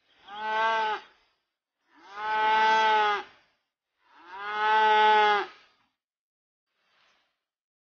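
Calves mooing: three separate long moos in a row, the second and third longer than the first.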